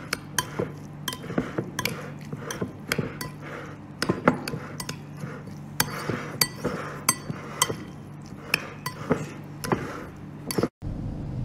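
Metal spoon gently stirring chopped raw trout tartare in a ceramic bowl: irregular clinks and scrapes of the spoon against the bowl, over a steady low hum.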